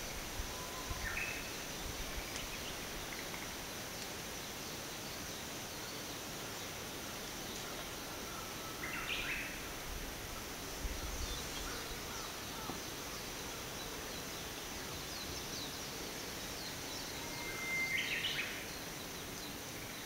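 Wild birds giving a few short whistled calls, about three, spaced several seconds apart. The last call, near the end, is the loudest, over a steady forest background hiss.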